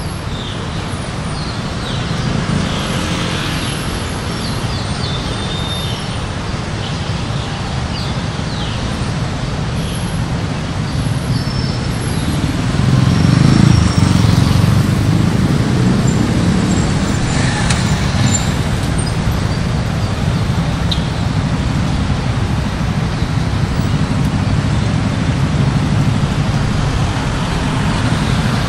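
Steady city road traffic, a continuous rumble of passing cars and heavier vehicles, swelling louder about halfway through before settling back.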